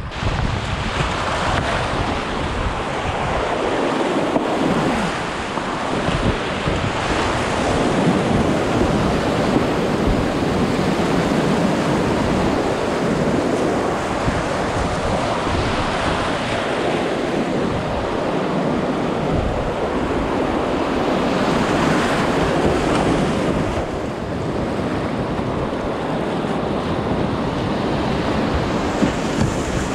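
Whitewater river rapids rushing and churning loudly around a kayak, close to the water, swelling and easing every few seconds as the boat runs through the waves.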